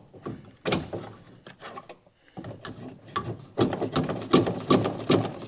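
Irregular clatter and knocking of hand tools and metal parts, sparse at first with a short lull, then a denser run of knocks in the second half.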